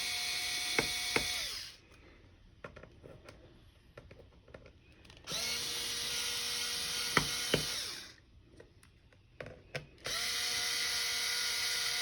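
Small electric screwdriver running in three spells of about two seconds each, backing out the small bottom-cover screws of a laptop. Light clicks and taps come in the pauses between runs.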